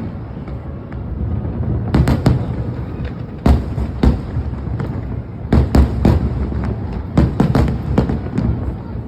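Aerial fireworks bursting in rapid volleys: clusters of sharp bangs about two seconds in, again around three and a half to four seconds, and through much of the second half, over a continuous low rumble.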